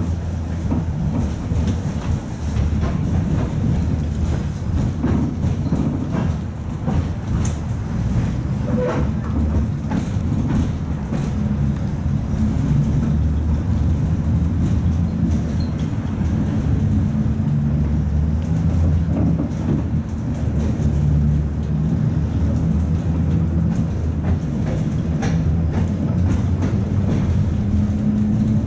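Interior sound of a 71-619A tram running along its rails: a steady low rumble with a hum that shifts in pitch, and scattered clicks and knocks from the wheels on the track.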